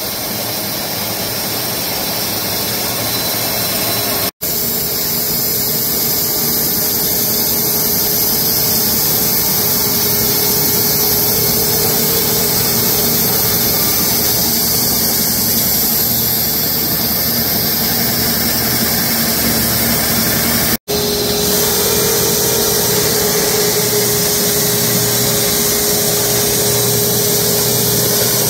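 Wood-Mizer LX250 electric band sawmill running, a loud steady machine noise with a faint even hum under it. The sound drops out for an instant twice.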